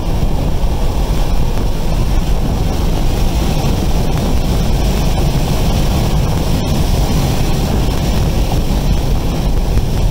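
Steady road and wind noise from a Tesla Model 3 Performance at track speed, around 75 to 100 mph. The car is electric, so there is no engine note, only a constant low tyre-and-wind rush.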